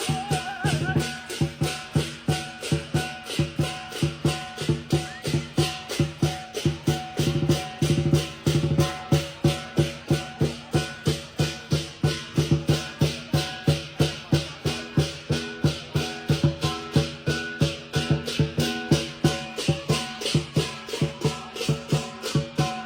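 Lion dance percussion: the big lion drum with clashing cymbals and a gong playing a steady, fast, driving beat.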